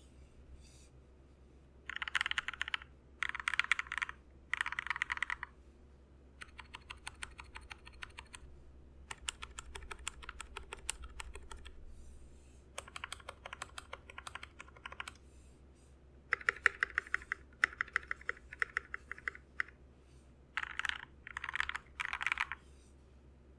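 Typing on a HolyTom TOM980 mechanical keyboard with lubed and filmed Gateron Pro Yellow linear switches in a steel plate, under OEM-profile pudding keycaps. It comes in spurts of fast keystrokes, one to three seconds long, with short pauses between them.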